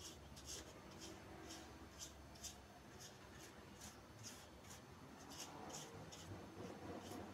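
Faint swishing of a paintbrush's bristles stroked across popsicle-stick wood, short strokes about twice a second.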